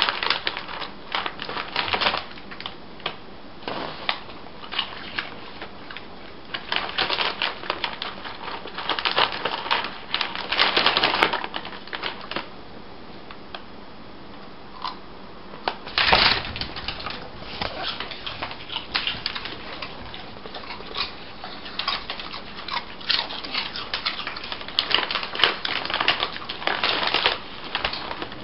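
Crinkly plastic snack bag rustling and crackling in irregular bursts as a toddler's hands dig into it, with a lull about halfway through and a sharp loud crinkle just after.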